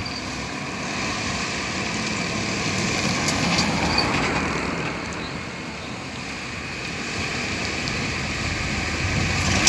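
Motor vehicle running, a steady noisy sound that swells about a third of the way in, eases, then builds again near the end.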